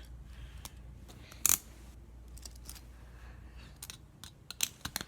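Metal handcuffs and a small key being handled, clicking and clinking as the key is tried in the lock: one sharp click about a second and a half in, then a quick run of clicks near the end.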